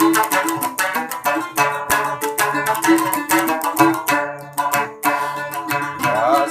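Large gambus, the Sasak lute, plucked in a quick run of single notes with no voice, ending in a fast rising slide of notes.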